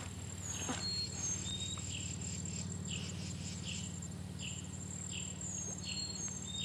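Insects calling in the creekside vegetation, a steady high-pitched buzz with a short falling chirp repeated about one and a half times a second.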